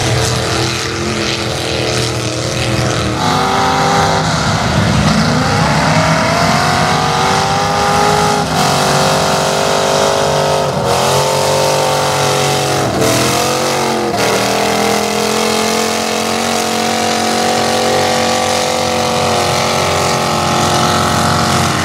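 Lifted mud-bog pickup truck engine revving hard as the truck ploughs through a mud pit. The pitch climbs, drops sharply several times in the middle as the throttle comes off and goes back on, then holds at a steady high rev near the end.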